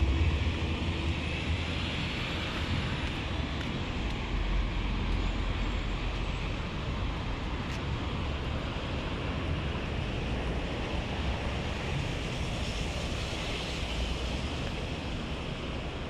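Steady noise of distant highway traffic, an even wash with a low rumble and no distinct events.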